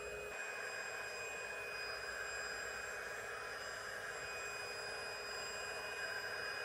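Small electric air pump running steadily as it blows up an inflatable plastic paddling pool: a constant whine over a rushing airy hiss.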